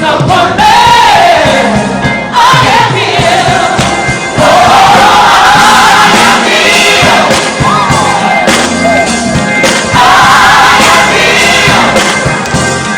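A group of voices singing a gospel praise song, loudly.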